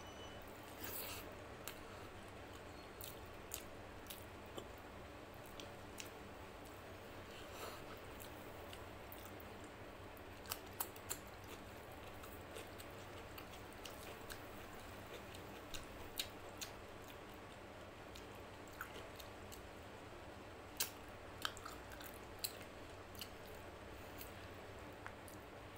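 Close-miked eating sounds of rice and mutton curry eaten by hand: scattered sharp, wet mouth and finger clicks at irregular intervals over a faint steady hum.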